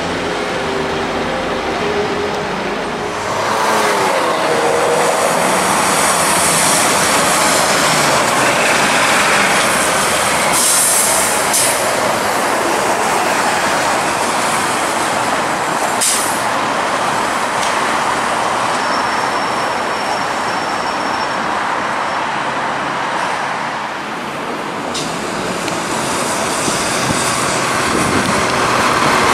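Street traffic noise dominated by TTC transit vehicles: a TTC Orion VII diesel city bus runs and pulls through a turn, with a few brief clicks partway through.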